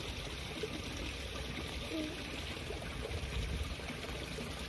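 Faint steady outdoor background: a soft, even hiss with a low rumble beneath and no distinct event.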